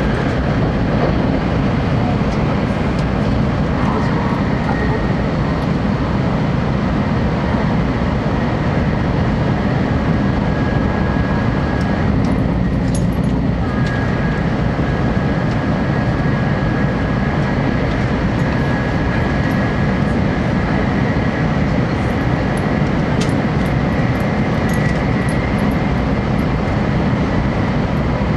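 A moving train running steadily: continuous rumble and rail noise with a few faint high tones.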